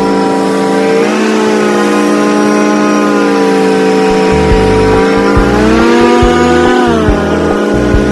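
Airboat's engine and propeller running loud, the pitch stepping up about a second in, rising again around six seconds and dropping back a second later as the throttle changes.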